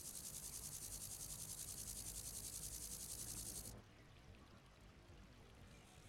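Grasshopper stridulating, rubbing the pegged ridge on its hind legs against its wings: a high, rapid, evenly pulsed chirring that cuts off suddenly a little over halfway through.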